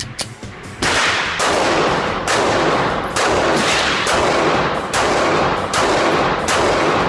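Glock 26 9mm subcompact pistol firing a string of about seven shots, a little under a second apart. Each is a loud crack with a long reverberant tail from the indoor range.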